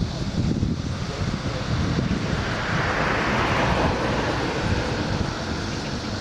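Jet airliner engine noise that swells to a peak about halfway through and then fades, with wind buffeting the microphone throughout.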